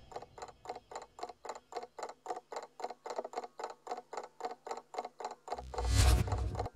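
Clock-like ticking, even and about four ticks a second, then a low rumbling swell that rises about five and a half seconds in and cuts off suddenly just before the end.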